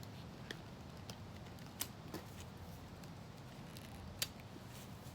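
Faint, scattered small clicks and snips of scissors working at the insides of a broken iPhone 7, a handful of separate ticks, the sharpest nearly two seconds in and again about four seconds in.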